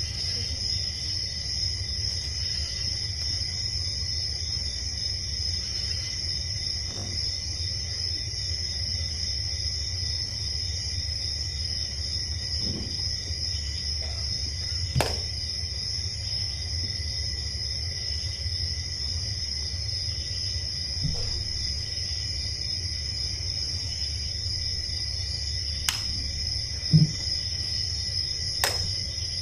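Sparse ambient soundtrack for a dance piece: a steady high chirring like crickets over a low hum, with no beat or melody. A few short knocks and one low thump, near the middle and near the end, come from the dancers on the floor.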